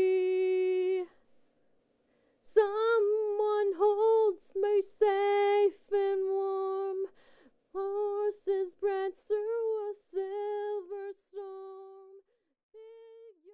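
A woman singing a cappella: she holds a long note that ends about a second in, then after a short pause sings several more phrases of the song.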